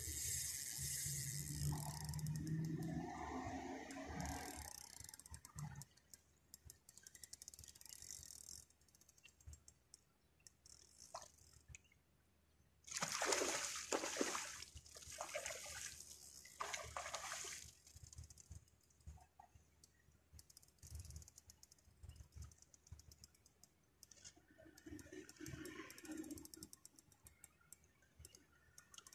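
Water splashing as a hooked fish thrashes at the surface during the fight, in two stretches: near the start, and loudest for about four seconds around the middle. Scattered light clicks fall between them.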